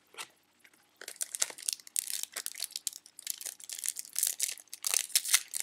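A foil baseball-card pack wrapper being torn open and crinkled by hand, a dense crackling rustle starting about a second in.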